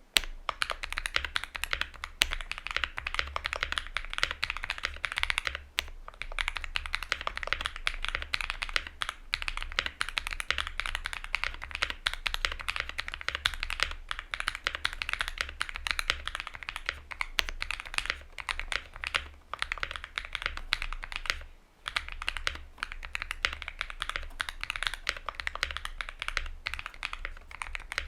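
Continuous fast typing on a Luminkey65 mechanical keyboard with lubed and filmed Mode Obscura switches on an FR4 plate with foam. It is a dense stream of key clacks, with one brief pause about three-quarters of the way through.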